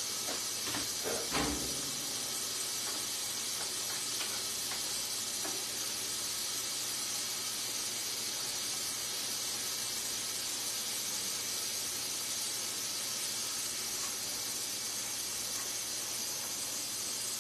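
Pork chops frying in a pan, a steady high sizzle, with a few faint knocks in the first two seconds.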